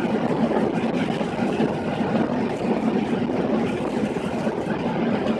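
Steady roar inside the cabin of a Boeing 737-800 slowing on the runway after touchdown: engine noise mixed with the rumble of the landing gear rolling on the runway.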